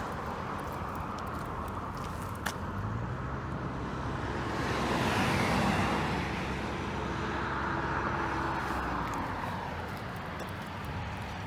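Highway traffic: motor vehicles passing by, one swelling to its loudest about halfway through and a second passing soon after.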